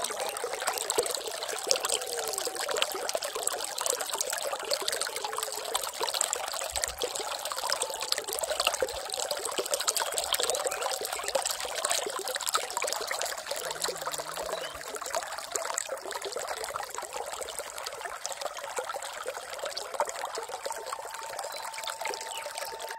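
Running water trickling and splashing steadily, a dense patter of small droplets over a constant rush.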